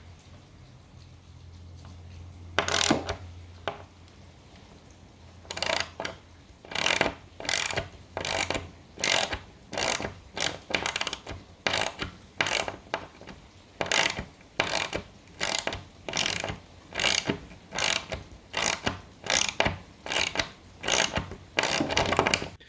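Hand ratchet clicking in repeated back-and-forth strokes, about one and a half a second from about five seconds in, as nuts are tightened onto pop bumper mounting bolts to pull them through the wooden playfield.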